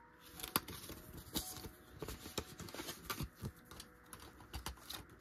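Cash being handled: soft, irregular clicks and rustles of Canadian polymer banknotes and plastic cash envelopes being moved and fitted into a ring binder.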